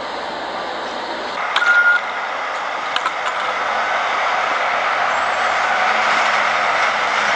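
Snowcat (piste groomer) engines running as a steady, noisy hum that grows louder from about four seconds in. A short single beep comes about one and a half seconds in, with a couple of faint clicks about a second later.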